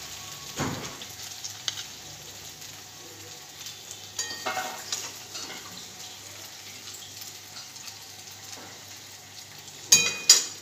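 A spatula scraping and tapping as food is served from a hot pan onto a plate, over a soft sizzle. A short, sharp ringing clatter near the end is the loudest sound.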